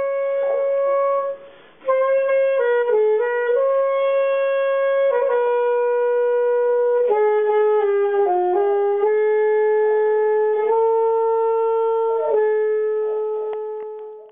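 Solo saxophone playing a slow melody of long held notes, one note at a time, with a short break for breath about a second and a half in. It fades out near the end.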